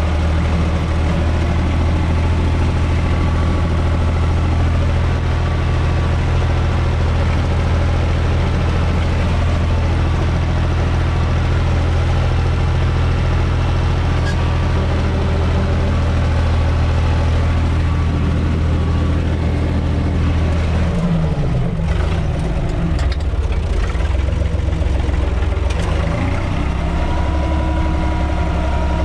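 UTB 445 tractor's diesel engine running steadily, heard from inside the cab. About two-thirds of the way through the engine speed drops, with a few knocks, and it then runs steadily again near the end.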